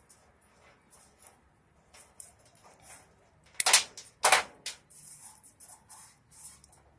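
Electric arc welder striking an arc twice, each a short crackling burst, about half a second apart, amid faint scattered clicking.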